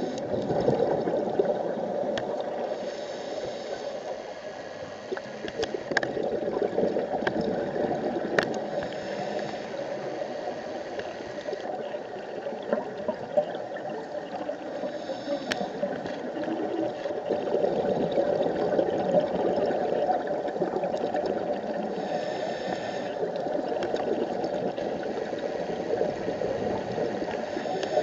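Underwater sound through a camera housing: a steady muffled water rush with scattered sharp clicks. Every few seconds there is a brief hiss of a scuba diver's regulator breathing.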